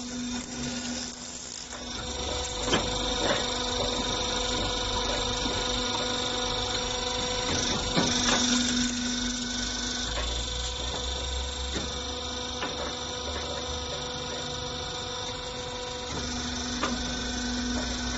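Motor stator dismantling machine running with a steady electric hum and several fixed tones. Scattered knocks and clicks sound as it works on scrap motor stators to remove the copper wire.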